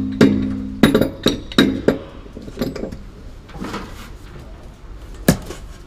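Metal-on-metal clanks and knocks of a heavy Ridgid Stillson pipe wrench being fitted onto a steel sprinkler pipe, several in the first two seconds, the first ringing briefly. One more sharp knock comes near the end.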